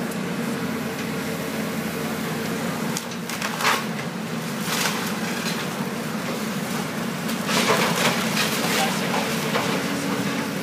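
Caterpillar 320C hydraulic excavator's diesel engine running steadily as it tears into a wood-frame house, with cracking and splintering of breaking timber about three and a half seconds in and again, loudest, from about seven and a half to nine seconds in.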